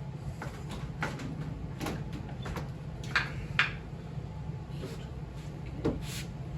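Scattered clunks and knocks as a motorcycle engine is shifted about inside its frame while being worked loose, with two sharper knocks about three seconds in and another near the end.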